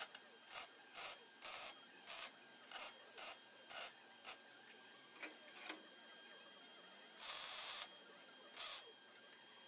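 A ratchet being worked in short strokes, about two a second at first and then slower, with one longer pull about 7 s in. It is drawing a stiff length of rectangular steel tube into a bend.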